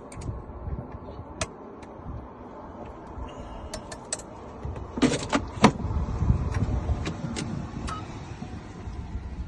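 Scattered sharp clicks and metal taps as a freshly cut key and locksmith tools are handled. A low rumble rises from about five to eight seconds in.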